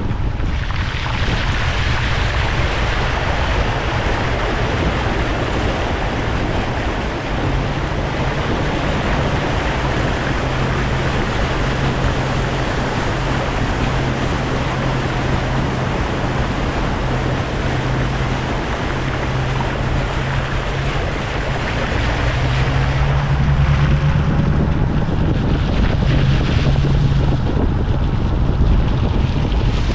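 Volvo car driving through deep flood water: water rushing and splashing against the body over the steady drone of the engine. About two-thirds of the way through the engine note rises and gets louder.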